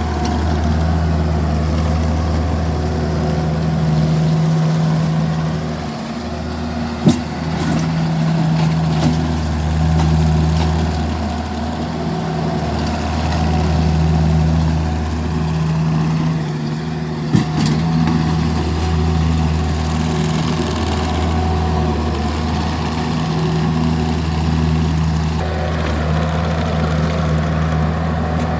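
Vermeer mini skid steer's engine running as it pushes snow with a snow box, the engine note swelling and easing every few seconds under changing load. Two short sharp knocks, about seven and seventeen seconds in.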